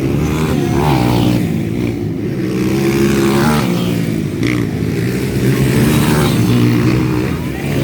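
Several 200 cc motocross motorcycles racing, their engines revving up and down with several engine notes overlapping.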